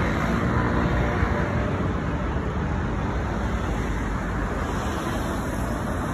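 Steady deep rush of road and wind noise from a moving vehicle.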